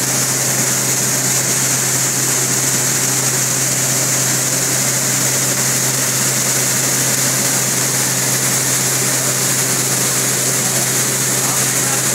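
Five-fan gravity separator running: a steady low hum under a strong, even airy hiss.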